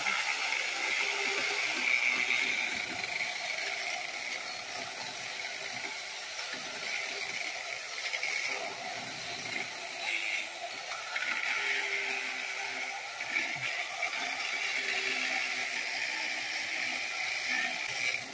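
Small chainsaw cutting through a tree limb, running steadily with the chain chattering and rattling in the wood.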